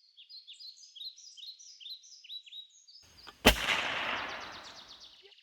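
Small birds chirping in a quick repeating pattern, then about three and a half seconds in a single sharp crack of a .25-calibre AirForce TalonP PCP air pistol firing, trailing off over a second or so.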